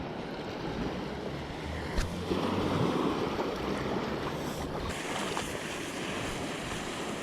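Sea surf washing in, swelling a little about two seconds in, with wind buffeting the microphone.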